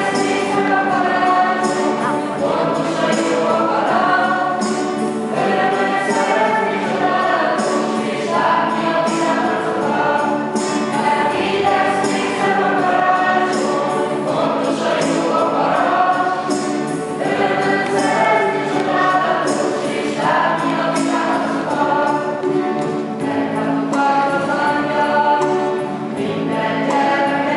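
A choir singing: many voices together in one continuous song, with no break.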